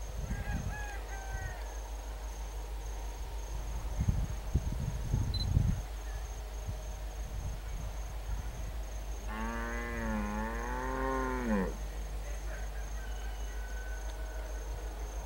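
A cow mooing once past the middle, a single call of about two seconds that wavers up and down in pitch. A few low rumbling thumps come about four to six seconds in, and short chirps near the start.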